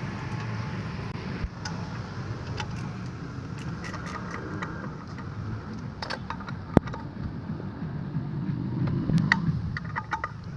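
Scattered metal clicks and taps of a 12 mm socket wrench loosening the exhaust pipe's mounting bolts under a scooter's engine, with one sharp click about two-thirds through, over a steady low rumble.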